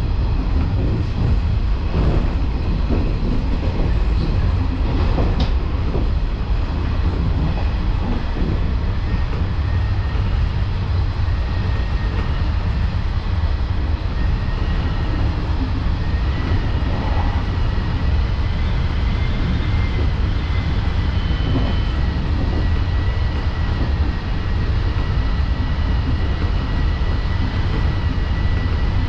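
Running sound of a JNR 113 series electric commuter train, heard from behind the driver's cab: a steady loud rumble of wheels on rail, with a few knocks in the first several seconds. About halfway through, a thin steady whine comes in and holds.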